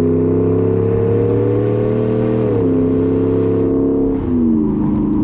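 Ram pickup's V8 engine running under load: its pitch holds steady, then drops in two steps, about two and a half and four seconds in, like upshifts.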